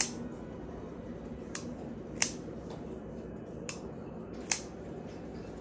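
Hoback Radford folding knife being worked open and shut after a slight pivot tightening, the blade clicking sharply five times, loudest a little past two seconds and at about four and a half seconds.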